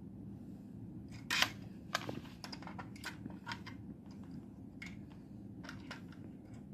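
A string of sharp clicks and taps from handling multimeter probes and test gear, the loudest about a second in, over a steady low hum.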